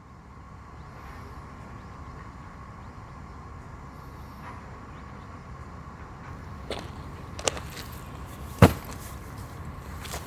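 Steady low outdoor rumble with a faint constant hum, broken in the second half by a few sharp cracks, the loudest about eight and a half seconds in.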